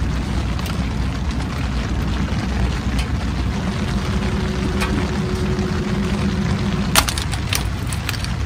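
Wood fire crackling in a small camp wood stove: scattered sharp pops over a steady low rumble, with a burst of several crisp cracks about seven seconds in.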